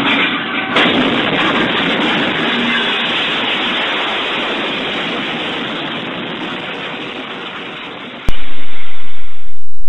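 Train crashing into a vehicle on the track: a sudden bang about a second in, then a loud rushing crash noise that slowly fades and cuts off abruptly near the end.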